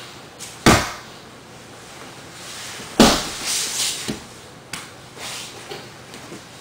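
Two heavy thuds of bodies and hands hitting a padded grappling mat, about two seconds apart, the second followed by scuffling and rustling of clothing, then a few lighter knocks.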